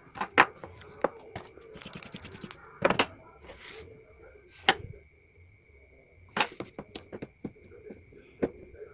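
Irregular sharp clicks and knocks, with a quick rattle of clicks about two seconds in and a cluster of knocks past the six-second mark, over a faint steady high-pitched whine.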